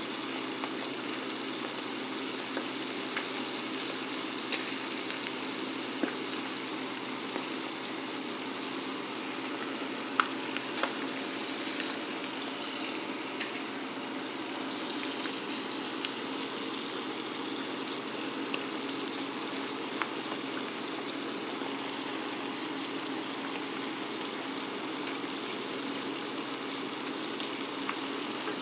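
Floured hog maw frying in hot vegetable oil in a skillet on high heat: a steady sizzle with scattered pops and crackles, the loudest pop about ten seconds in.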